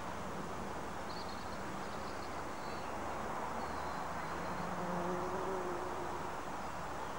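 Outdoor dawn ambience: a steady low background rumble with a few faint high bird chirps, and a low buzz that swells for a couple of seconds about halfway through.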